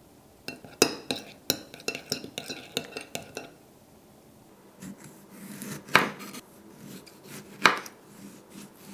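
A metal spoon clinks and scrapes against a small ceramic dish in a quick run of ringing taps, stirring a thick mayonnaise and mustard sauce. After a pause a chef's knife slices through a tomato, with two sharp knocks of the blade on a bamboo cutting board.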